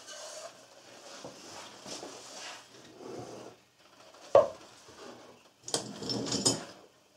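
Handling noise from a carved wooden box being turned over in the hands: rubbing and light wooden clatter, with one sharp knock about four seconds in and a short flurry of scraping and knocking near the end.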